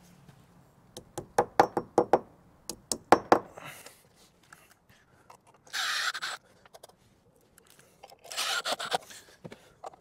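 Clicks and knocks of hand work fixing an EV charger unit to a brick wall, in two quick clusters, followed by two short rushes of scraping noise about six and eight and a half seconds in.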